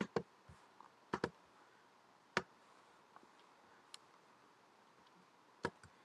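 Computer mouse clicking now and then: single clicks and quick pairs of clicks, a second or more apart.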